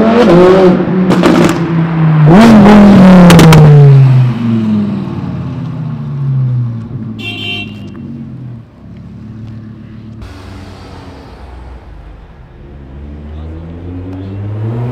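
Audi R8 revving hard twice as it pulls away, with sharp cracks from the exhaust during the revs. Its engine note then falls and fades as it drives off. Near the end another sports car's engine rises as it approaches.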